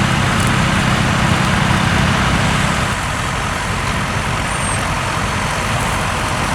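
Tractor engine running steadily, its low hum dropping away about three seconds in, over a constant broad rushing noise.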